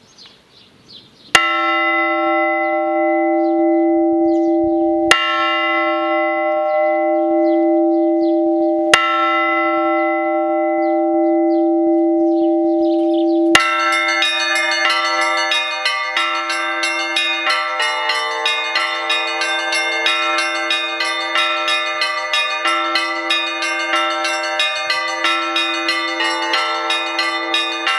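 Orthodox monastery church bells: one large bell struck three times, slowly, about four seconds apart. About halfway through, many bells of different pitches join in a fast, continuous peal.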